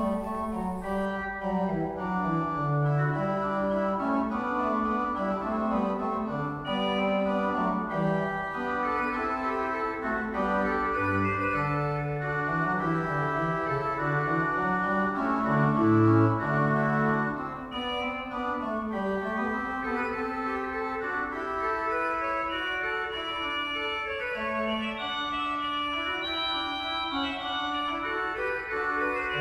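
Organ music: sustained chords whose notes shift slowly beneath a moving upper line.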